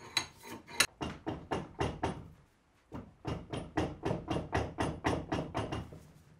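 Rhythmic scraping strokes on a metal bench vice, about four a second, typical of hand-scrubbing rust off it with a brush or file. There are two runs of strokes with a short break about two seconds in.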